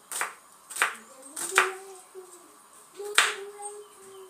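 Kitchen knife chopping onion on a wooden cutting board: four sharp knocks at uneven intervals as the blade strikes the board.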